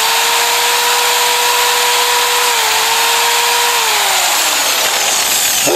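Corded electric drill running at steady speed with its bit in a hole just drilled through a mower's metal bracket. About four seconds in the motor winds down, falling in pitch, and it starts up again briefly at the very end.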